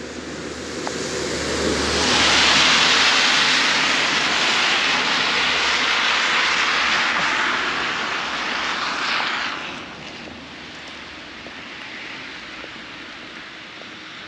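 A motor vehicle passing: a loud rushing noise that builds over about two seconds, holds for several seconds, then falls away about ten seconds in.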